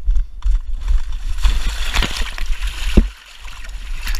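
Splashing and sloshing through muddy water in a flooded trench, with one sharp knock about three seconds in.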